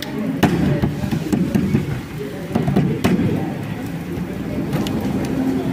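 Roti canai dough being handled and pressed out on an oiled stainless-steel table, with a few sharp slaps of dough on steel over a steady background din.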